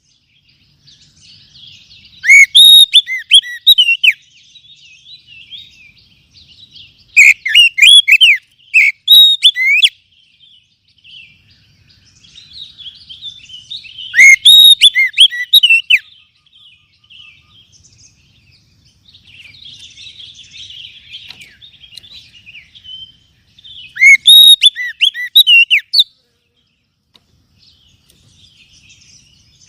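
Oriental magpie-robin (kacer) song: four loud bursts of rapid, swooping whistled phrases, each about two seconds long, with softer chattering and twittering between them.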